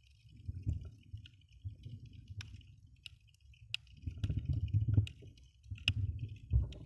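Underwater sound from a camera held below the surface: muffled low rumbling swells of water moving against the housing, growing louder after a few seconds, with sharp clicks every second or so and a faint steady hiss.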